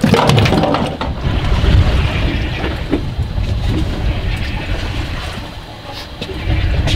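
Wind buffeting the microphone and water sloshing around a small fishing boat, a steady rushing noise, with a few sharp handling knocks in the first second.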